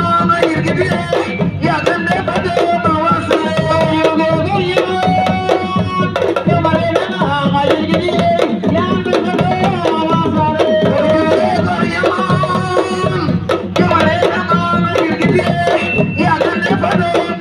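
Sabar hand drums played in a dense, fast rhythm, with voices singing over them.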